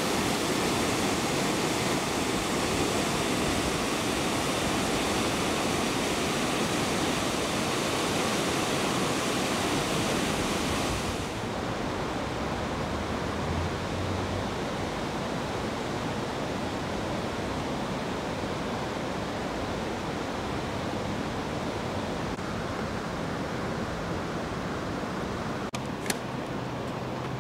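Steady rushing of the Danube's river water. About eleven seconds in it gives way to a softer, duller steady outdoor noise, with a faint low hum and a couple of clicks near the end.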